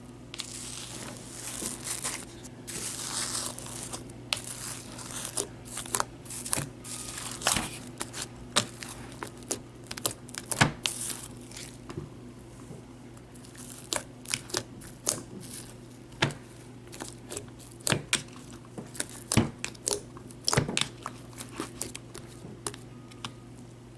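A large mixed slime being squished and poked inside its container. It makes irregular sharp pops and clicks, with a crackly patch in the first few seconds, over a steady low hum.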